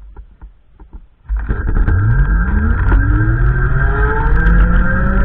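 A motor vehicle accelerating over heavy low rumble, starting abruptly about a second in. Its engine pitch rises steadily, then climbs again more slowly.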